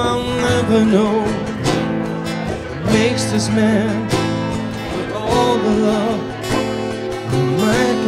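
Two acoustic guitars strummed in a steady groove with a man singing the melody over them, a live acoustic duo performance.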